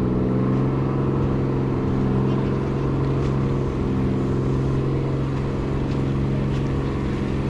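An engine running at a steady speed: a loud, even, low hum with a clear pitch that holds unchanged throughout.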